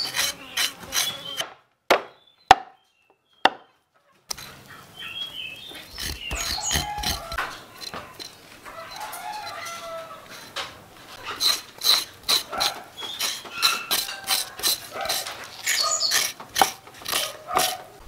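Knife blade cutting through a raw pig's trotter and striking a wooden chopping board in repeated short chops, about two to three a second, with a silent gap of about three seconds near the start. Hens cluck in the background.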